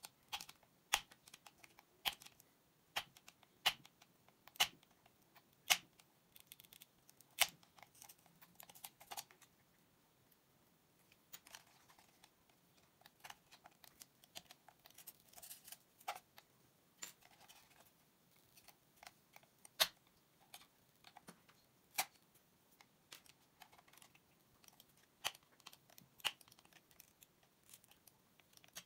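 Small screwdriver prying and scraping at the plastic underside and feet of a Bloody A9 gaming mouse: irregular sharp plastic clicks and brief scratches, a few clicks much louder than the rest.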